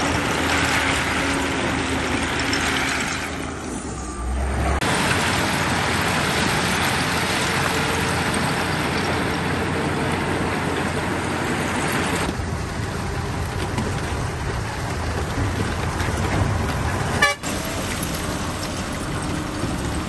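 Heavy earthmoving machinery running, a steady diesel engine and machine noise. It drops briefly about four seconds in and has a sharp click near the end.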